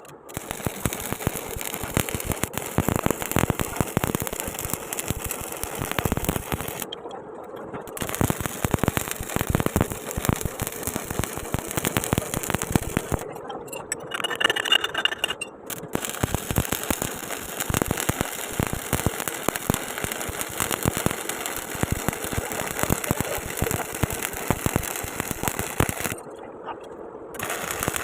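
Stick arc welding: the electrode's arc crackling and sputtering steadily, with three short breaks where the arc stops, about seven seconds in, around the middle, and near the end.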